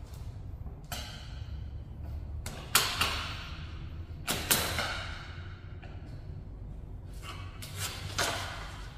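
Long thin silver metal floor strip being pulled up from the seam between a rubber mat and a wooden floor, slapping against the floor with several sharp hits that ring briefly, the loudest about three seconds in, near the middle and near the end. A low steady hum runs underneath.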